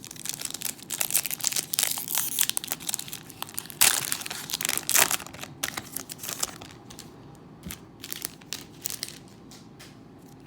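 Foil wrapper of a Pokémon Sword and Shield booster pack crinkling and tearing as it is opened by hand. The sound is busiest in the first six or seven seconds, with two loud rips about four and five seconds in, then thins out to scattered rustles.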